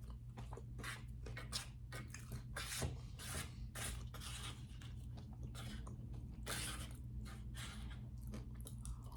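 Close-up chewing of a mouthful of sandwich: irregular soft smacks and clicks of the mouth over a steady low hum.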